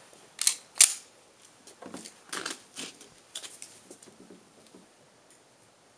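Metallic handling clacks from a Rock Island 1911 pistol as it is readied to fire: two sharp clacks about half a second in, then fainter clicks and knocks that die away.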